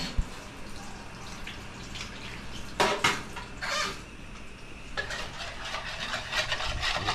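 Dishes and utensils clattering and scraping, with a sharp click near the start, two short clatters about three seconds in, and a busier run of scraping and clinking over the last couple of seconds.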